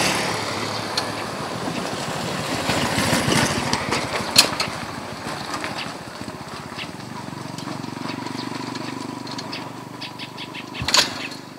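Small motorcycle that will not start: the rider works the starter and controls with the bike still in gear, and the engine does not catch. A few sharp clicks and knocks of handling come through, the loudest about four seconds in and again near the end.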